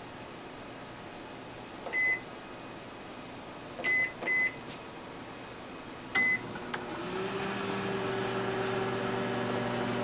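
Microwave oven keypad beeping four times as its buttons are pressed, the middle two close together. About seven seconds in the oven starts running with a steady electrical hum.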